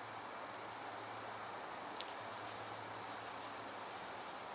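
Quiet background ambience: a steady low hum under faint high ticking, with one brief click about two seconds in.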